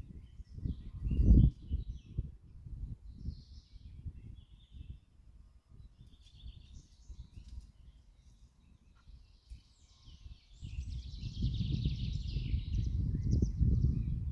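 Wind gusting on the microphone, with a strong buffet about a second in and heavier gusts in the last few seconds. Birds chirp now and then above it.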